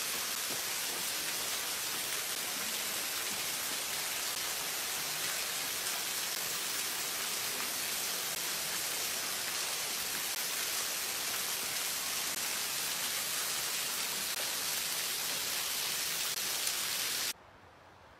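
Steady rush of flowing creek water through a snowy rock canyon, an even hiss that cuts off suddenly near the end, leaving only a faint hush.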